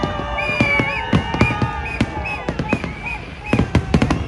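Fireworks bursting in a rapid barrage of sharp bangs, thickest near the end, with high steady and wavering whistling tones running over them.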